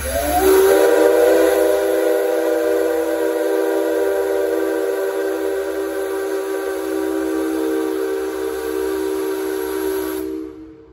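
Locomotive whistle blown in one long blast of about ten seconds: a chord of several pitches that slides up as it starts, holds steady, and cuts off near the end.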